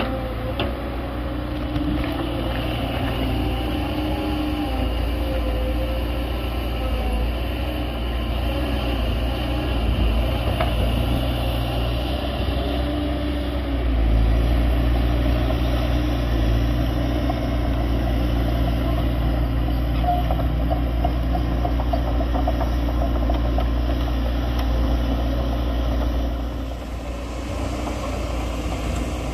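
Caterpillar 320D hydraulic excavator's C6.4 diesel engine running steadily under digging load, getting louder about halfway through and easing off briefly near the end.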